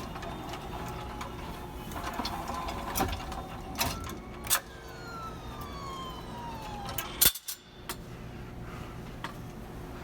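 Scattered clicks and knocks of the crane game's claw parts being handled, over a steady low hum. A falling tone slides down over about two seconds around the middle, and a sharp click comes about seven seconds in.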